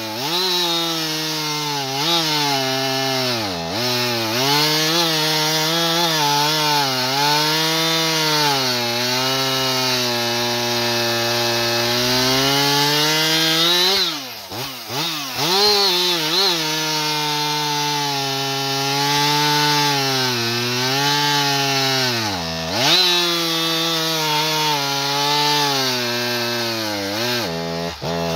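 Husqvarna 585 XP two-stroke chainsaw with an aftermarket expansion-chamber pipe, cutting through a frozen log at full throttle. The engine pitch sags sharply and recovers several times as the bar is leaned into the wood: under hard feed pressure this pipe bogs the saw down instead of pulling through, which the operators put down to it being too 'pipey', trading torque for rpm.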